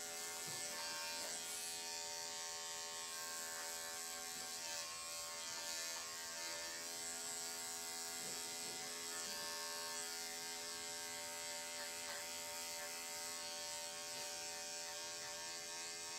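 Andis 5-speed corded electric dog clippers running steadily with an even motor hum as they shave through the dog's coat.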